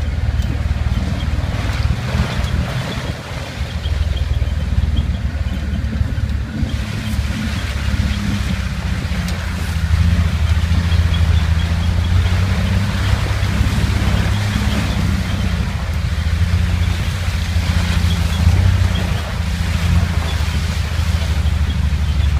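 Engine of an open-top four-wheel-drive vehicle running steadily as it drives up a muddy, rutted track, a low even hum with a haze of road and wind noise over it. The hum dips briefly about three seconds in, then grows stronger and stays steady.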